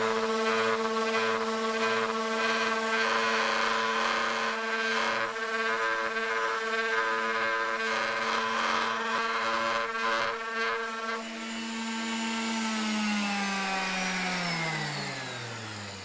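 Erbauer ERO400 400 W random orbital sander running at high speed and sanding, a steady motor whine under a rough scrubbing noise. About eleven seconds in the scrubbing stops; about two seconds later the whine falls steadily in pitch as the sander spins down.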